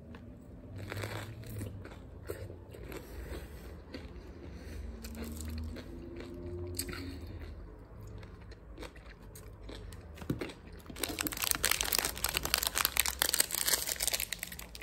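Close-up biting, crunching and chewing of a chamoy pickle wrapped in fruit roll-up and stuffed with Takis chips. About eleven seconds in, a louder dense crinkling of a plastic candy packet takes over.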